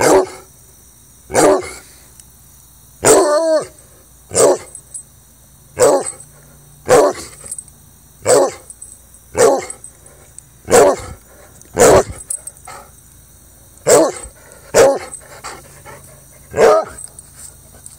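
Treeing Walker Coonhound barking: about a dozen loud, short barks, roughly one every second and a half, with one about three seconds in drawn out into a longer bay. The barking stops about a second before the end.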